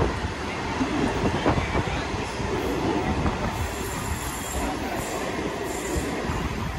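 Mumbai suburban local train (an electric multiple unit) running on the track: a steady rumble of wheels and cars, with thin high-pitched wheel squeals coming in about halfway through.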